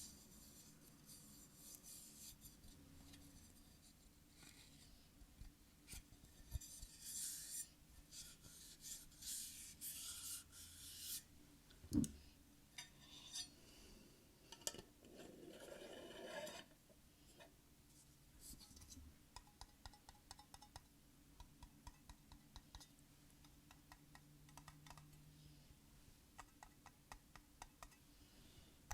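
Faint close-up ASMR trigger sounds. Irregular scratching and rubbing with one sharp tap about twelve seconds in, then a run of light ticks or taps through the second half.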